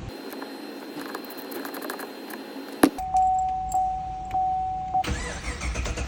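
A car being started after a starter motor replacement: clicking and key sounds, a sharp knock, then a steady warning chime over rhythmic surges as the engine cranks and runs.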